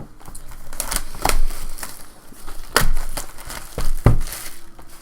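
Plastic wrapping on a hobby box of trading cards being torn open and crumpled: a run of sharp crinkling rips and rustles, with a hissing tear about four seconds in.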